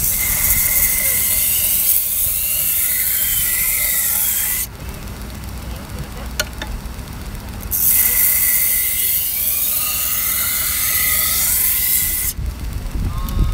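Chef knife edge ground against the running abrasive belt of an AMK-75 belt sharpener: two passes of about four and a half seconds each, a loud hiss with a wavering squeal. Between the passes only the machine's motor and belt run with a low hum, and there is a single click.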